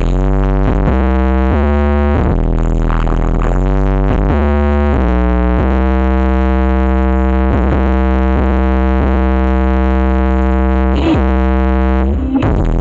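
Loud electronic dance music with sustained synthesizer chords over a steady heavy bass, played through a BMS Audio sound system. The chords change every second or so, then one chord is held for several seconds.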